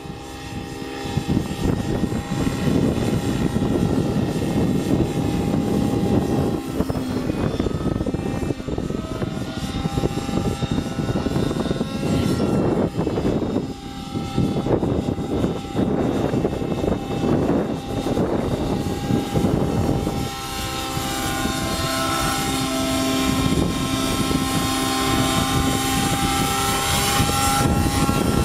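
Thunder Tiger Raptor 90 G4 RC helicopter in aerobatic flight: its two-stroke nitro engine and spinning rotor blades, rising and falling in loudness as it manoeuvres. The engine note is steadier and stronger in the last third as the helicopter comes in low and close.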